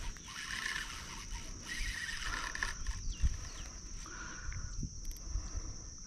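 Steady high-pitched chorus of crickets, with a few fainter animal calls coming and going beneath it and a soft knock about three seconds in.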